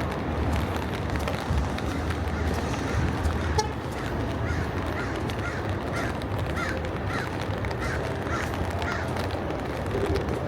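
A bird giving a series of about ten short calls, about two a second, through the middle stretch, over a steady low outdoor rumble.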